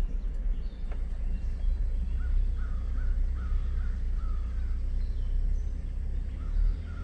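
Low, steady rumble of a Ford Ranger pickup driving slowly on a dirt trail, heard from inside the cab. From about two seconds in, a series of short, high animal calls repeats about twice a second.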